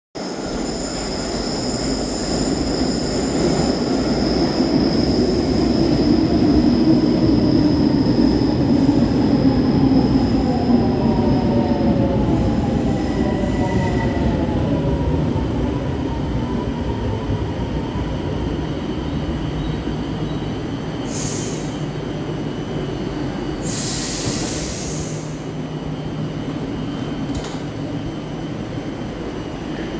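Milan Metro Line 1 train running into an underground station: steel wheels squeal steadily on the curve as it gets louder, then a falling whine as the train brakes to a stop. In the last third there is a short hiss, then a longer one, as the doors open.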